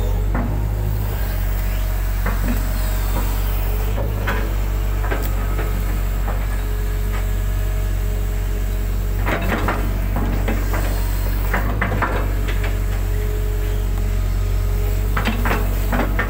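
Hitachi hydraulic excavator's diesel engine running steadily, heard from inside the cab, with scattered knocks and clanks as the bucket digs and dumps mud, in clusters about four seconds in, around ten seconds in and near the end.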